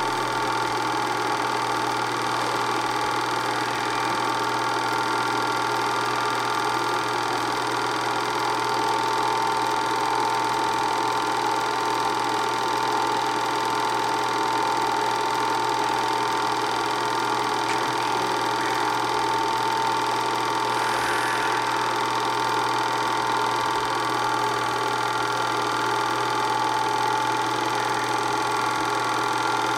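Home-movie film projector running: a steady mechanical whir with a constant high-pitched hum.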